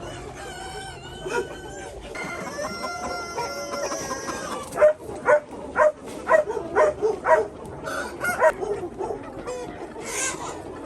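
A rooster crowing, one long drawn-out call about two seconds in, amid a flock of chickens clucking. It is followed by a run of loud, short calls at about two a second.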